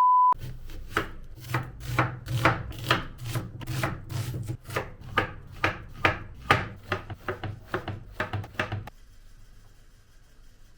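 A knife chopping food on a cutting board, in quick uneven strokes of about two or three a second over a steady low hum, stopping about nine seconds in. A short steady beep sounds at the very start.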